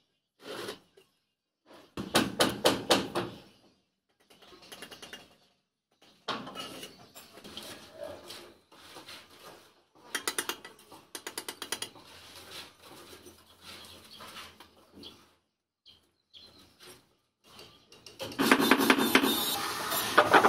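Trowel work on hollow clay bricks and mortar: short bursts of rapid taps and scrapes as mortar is spread and bricks are set, with quiet gaps between. Near the end comes a louder, denser stretch of noise.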